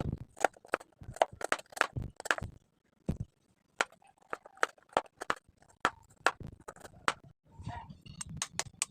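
Knife chopping garlic finely on a cutting board: irregular sharp taps, a few a second, with a short pause about three seconds in.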